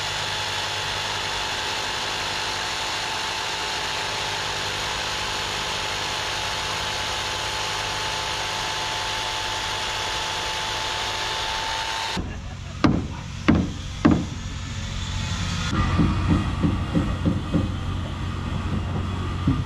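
A DeWalt jigsaw cutting into a hardwood rail, running steadily with one constant whine, then cutting off suddenly about twelve seconds in. Three sharp knocks follow, about half a second apart, and near the end a run of quicker, irregular knocks.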